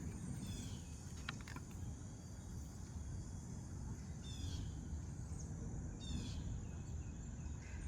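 Faint natural background: a steady high insect trill with a few short bird chirps, about half a second, four and a half and six seconds in, over a low rumble.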